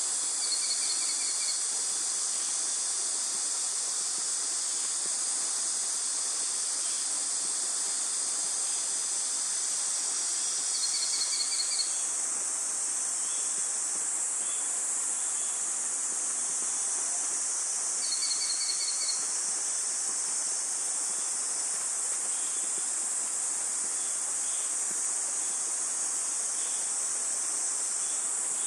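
Female Chinese sparrowhawk calling for her mate: three short, shrill series of rapidly repeated notes, each about a second long and several seconds apart. A steady high insect chorus runs underneath.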